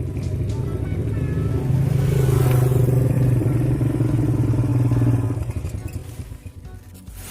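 A motorcycle engine running steadily. It grows louder about two seconds in and fades away over the last two seconds.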